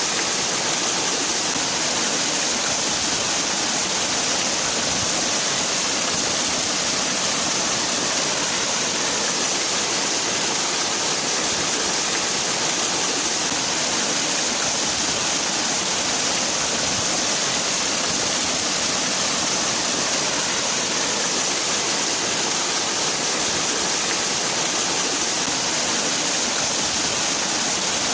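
Waterfall: water falling and splashing in a steady, unbroken rush with a strong hiss.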